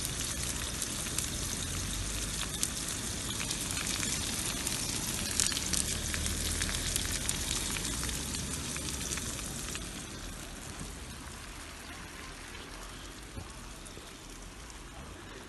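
Sucuk sausage frying in oil in a pan, sizzling with a dense patter of small crackling pops. The sizzle eases and grows quieter about ten seconds in.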